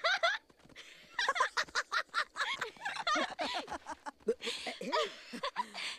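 Wordless voice sounds from the film's animated lion characters: a quick string of short squeaks and hums that rise and fall in pitch, close to laughter and play noises, with no words.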